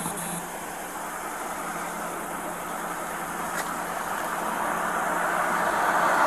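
Steady roadside traffic noise that grows louder toward the end as a vehicle approaches along the road.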